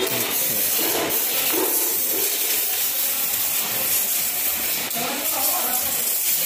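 A steady, loud hiss throughout, with fainter, indistinct sounds coming and going over it about a second in and again near five seconds.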